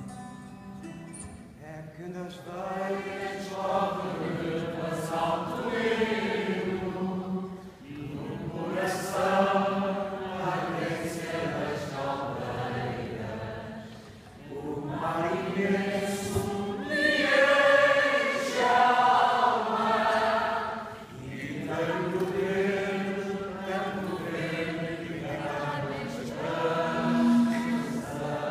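A large group of voices singing together in unison, accompanied by an acoustic guitar, in long phrases of about six seconds each with short breaths between.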